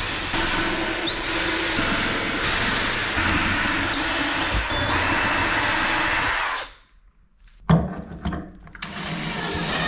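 Power drill running in long stretches, its whine rising as the motor spins up and then holding steady. It stops about seven seconds in, and a few sharp knocks follow.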